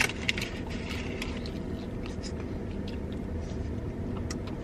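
Steady low hum inside a parked car, with scattered small clicks and rustles of someone eating, a few in the first half second and a couple more near the end.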